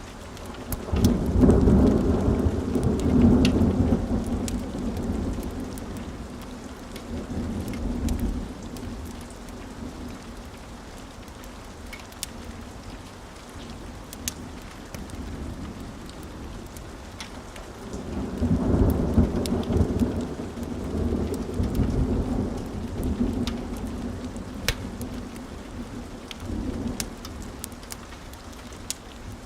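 Steady rain with two long rolls of thunder, the first about a second in and the second past the middle, and a shorter rumble near the end. Sharp crackles from a fireplace pop now and then over the rain.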